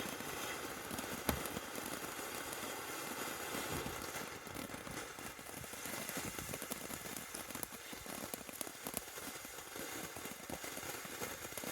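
Firework crackle fountain burning with a faint steady hiss and many small crackles, with one sharper pop about a second in.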